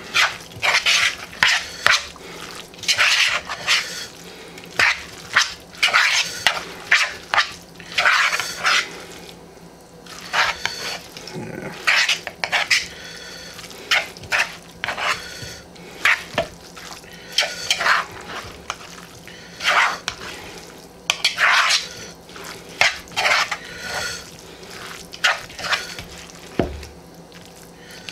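Metal fork stirring and mashing wet chicken salad in a plastic mixing bowl: irregular squishing strokes and scrapes of the fork against the bowl, about one or two a second.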